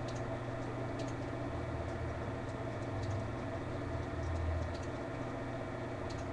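Steady low hum of a running computer picked up by the webcam microphone, with a few faint mouse clicks.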